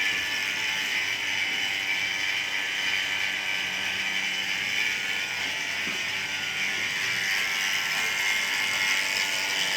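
Refrigeration equipment running steadily: a display cooler's motor-compressor kept on while a vacuum is pulled on its clogged capillary tube.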